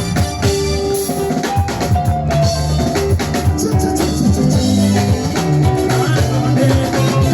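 Live band playing amplified music, led by a drum kit with kick, snare and rimshot hits over sustained bass notes.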